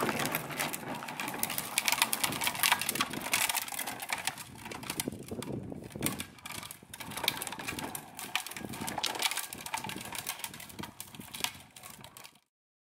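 Hard plastic wheels of a child's ride-on toy motorbike rattling and clattering as it rolls over rough asphalt. The sound cuts off abruptly about twelve seconds in.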